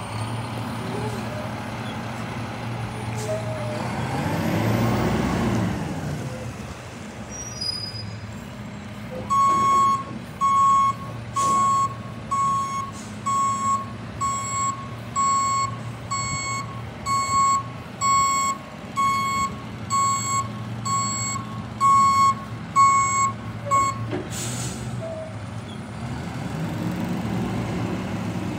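Rear-loader garbage truck's diesel engine idling, revving up and back down about four seconds in. Then its reversing alarm beeps steadily, about one and a half beeps a second, for some fifteen seconds as the truck backs up, followed by a short hiss of air.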